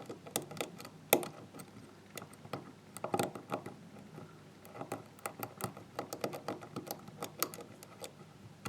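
Irregular small metallic clicks and ticks of a lock pick working the serrated pins of a GEGE euro-cylinder lock under tension, with one louder click about a second in.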